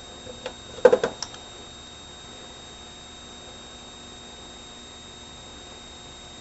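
A short cluster of clicks and knocks from small metal hand tools being handled, loudest about a second in, then only a faint steady hum.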